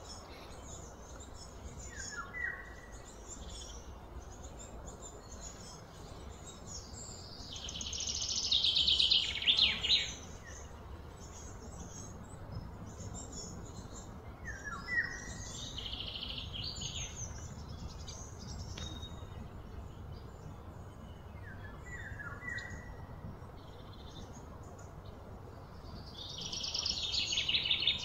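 Outdoor animal calls: short high chirps now and then, and twice a louder, high, rapidly pulsing trill that swells over about two seconds and then stops, over a steady low background hum.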